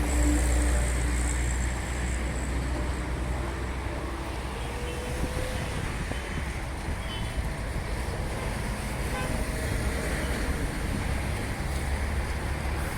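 Steady road traffic running past on a busy motorway, a continuous low rumble of cars and trucks.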